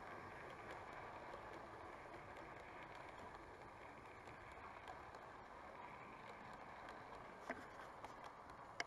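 00 gauge model train rolling along the track past the platform: a faint, steady running rumble, with two small clicks near the end.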